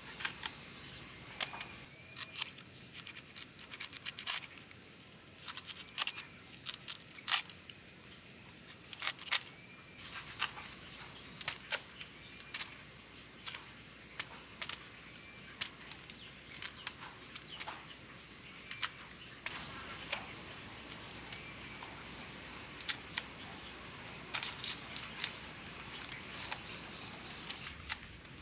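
A small knife cutting ripe bananas off a hanging bunch: irregular sharp clicks and snaps as each stem is cut through.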